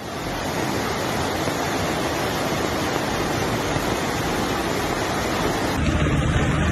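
Floodwater pouring over a weir, a steady rush of water. About a second before the end it shifts to a deeper rumble.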